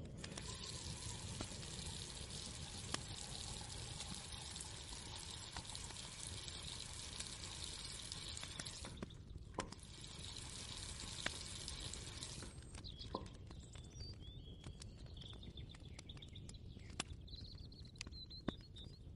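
Water pouring or running in a steady hiss, with small clicks and knocks, breaking off briefly about nine seconds in and stopping about twelve seconds in. After that, birds chirp faintly.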